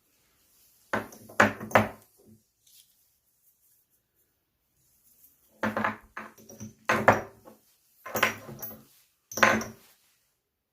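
Hard objects knocked and clattering as they are handled and set down, in two groups: three quick knocks about a second in, then about five more spread over the second half.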